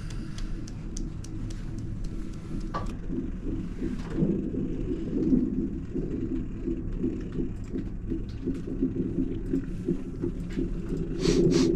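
Steady low rumbling room hum with a few faint clicks, and a brief louder rustling noise near the end.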